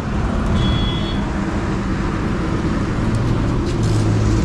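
Engine noise from motor vehicles running nearby, a steady low hum and rumble that grows stronger about three seconds in.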